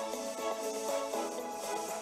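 Background music: an electronic tune with a quick melody of short notes.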